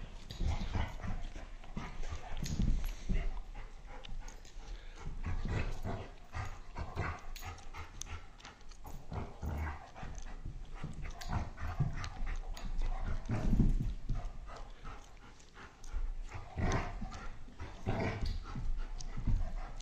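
An old dog and a nine-week-old puppy play-wrestling on carpet: irregular scuffling and thuds of paws and bodies, mixed with short dog play noises.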